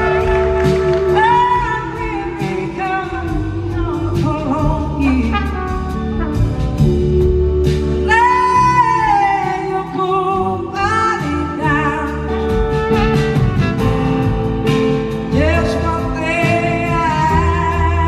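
Live band performance: a woman sings lead in long, wavering held notes over electric guitar and drums.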